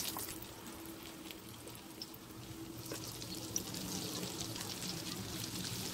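Yeast-dough pirozhki sizzling and crackling in hot oil in a frying pan, the sizzle growing louder about halfway through as more raw pies go into the oil. A single sharp click near the middle, with a faint steady hum underneath.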